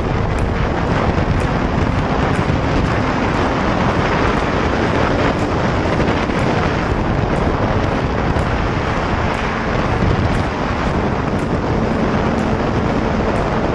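A 2016 Suzuki GSX-R1000 sport bike running at road speed: its engine sits under a steady, loud rush of wind on the microphone.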